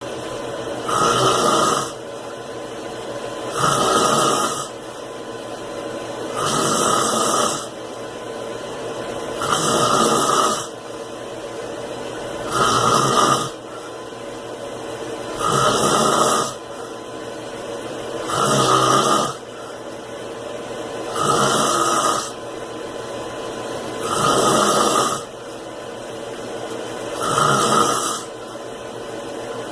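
A man snoring in regular, even rhythm, one snore about every three seconds, each lasting about a second. A steady quieter noise continues between the snores.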